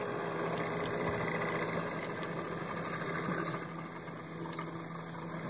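Outboard motor running steadily at low speed with an even hum.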